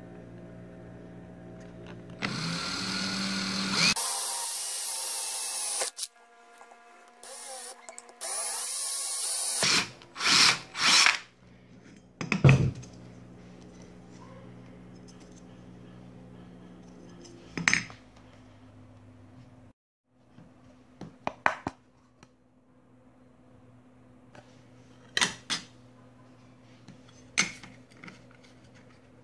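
Bosch cordless drill drilling through thin aluminium sheet: a run of a few seconds, a pause, a second run, then two short bursts. A sharp knock follows, then scattered light clicks and taps.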